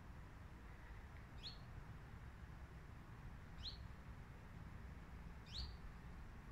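Common chiffchaff calling: three short, faint, rising 'hweet' whistles about two seconds apart. The call sounds like the anxious call of a common redstart.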